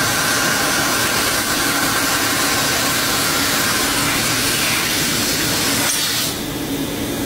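A 20 kW fiber laser cutting 45 mm carbon steel: a loud, steady rushing hiss from the cutting head's gas jet and the burning kerf, with a faint steady hum. The hiss eases somewhat about six seconds in.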